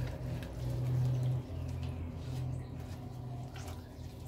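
Gloved hands squishing and rubbing a wet spice marinade over a raw whole chicken, making faint scattered squelches and clicks. A steady low hum runs underneath and is the loudest sound.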